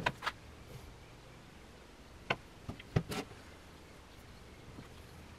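Light knocks and clicks of a hard plastic 3D-printed model and hands on a tabletop: two right at the start, then a group of three or four about two to three seconds in.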